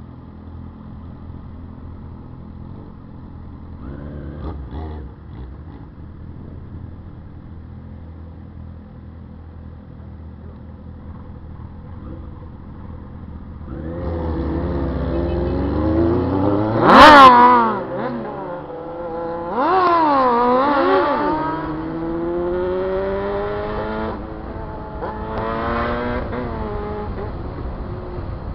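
Sport motorcycle engines idling, then revved hard several times from about halfway through, with repeated rises and falls in pitch. The loudest, sharpest rev comes a little past the middle, and a long rising run sounds like acceleration.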